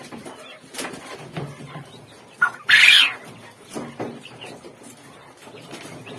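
Young quail being handled in wire-fronted cages: scattered knocks and rattles of the cage wire and trays, and one loud, harsh quail squawk about two and a half seconds in.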